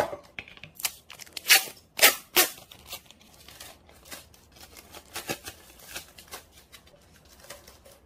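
Clear box tape being pulled off the roll and torn in short rasping rips, three loud ones close together about two seconds in, then handled and pressed down onto a plastic bottle and paper with smaller crinkles.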